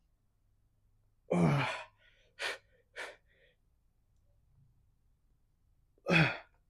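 A man's heavy breathing of effort during incline dumbbell presses: a strong voiced breath out, falling in pitch, about a second in, two short sharp breaths soon after, and another strong breath out near the end.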